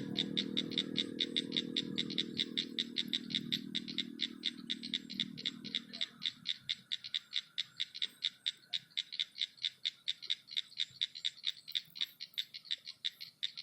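A frog calling at night: an even, rapid train of high clicking pulses, about five a second, that keeps going without a break. A low rumbling noise underneath fades away about halfway through.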